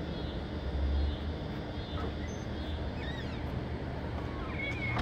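Outdoor background noise: a steady low rumble with a few faint, short high-pitched squeaks.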